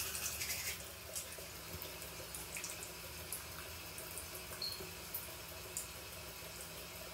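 Faint, steady rush of running water, with a few light clicks.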